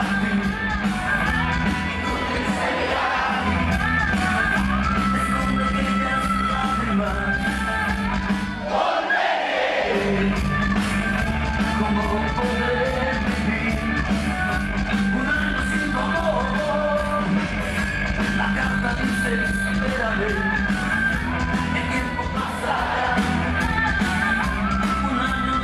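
Cumbia dance music played loud over a sound system, with a singing voice and a steady bass beat. About nine seconds in, the bass cuts out for about a second under a falling sweep, then the beat comes back.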